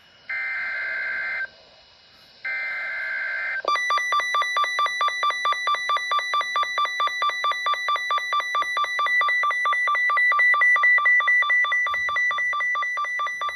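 NOAA Weather Radio EAS alert: the end of the SAME digital header, harsh buzzy data bursts about a second long with a second's gap between them, then a rapidly pulsing two-pitch electronic alert tone beeping several times a second. It announces an incoming severe thunderstorm watch.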